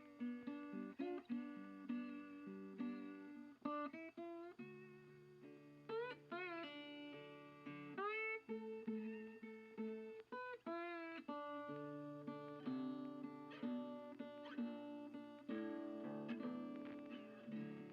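Background music: a plucked guitar melody with strummed chords and sliding, bent notes.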